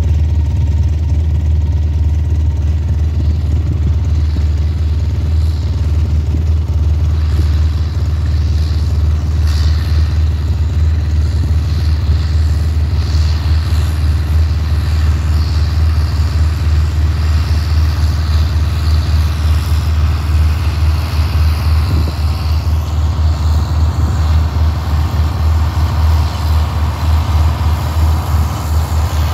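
A John Deere 4020 tractor's six-cylinder engine running steadily while pulling a hay rake, growing a little clearer near the end as it comes closer.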